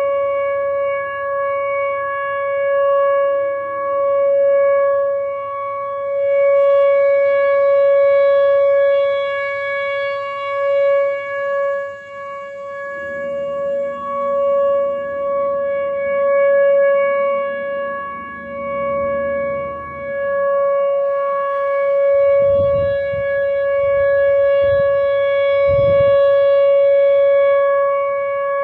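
Tornado warning siren sounding its monthly test at full pitch: one steady, loud wail whose volume swells and fades every few seconds.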